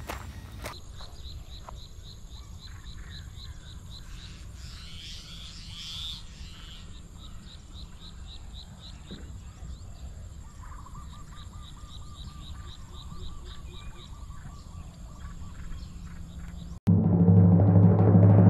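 Rural outdoor ambience of birds chirping, with evenly repeated high calls and a steady thin high drone. About 17 seconds in, a loud drum-heavy jingle cuts in abruptly.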